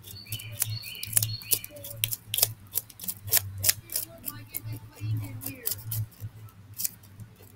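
Rapala fillet knife scraping and cutting a small fish against a wooden slab while it is cleaned: an irregular run of sharp clicks and scrapes.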